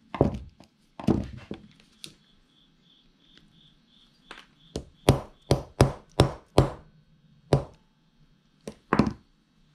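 A small brass-headed hammer tapping a screwdriver set against a corroded old Briggs & Stratton carburetor to free a stuck part. About a dozen sharp metal taps, several in quick succession in the middle.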